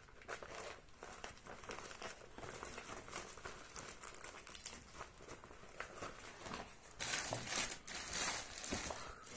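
Clear plastic sheet protectors holding papers crinkling and rustling as they are handled close to the microphone, in many small crackles, growing louder and denser about seven seconds in.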